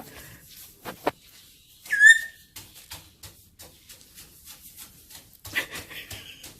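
Pet parrot giving a single loud whistle about two seconds in that swoops down and levels off, with a rougher, raspy call near the end. Two sharp knocks come just before the whistle, and faint ticking runs throughout.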